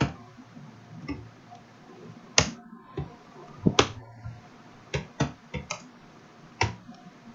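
Typing on a computer keyboard: about a dozen sharp key clicks at uneven intervals, some much louder than others.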